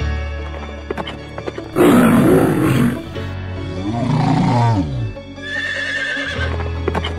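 Recorded animal calls over background music: a loud, rough call about two seconds in, then a whinny-like call that rises and falls, and a shorter, higher call near the end.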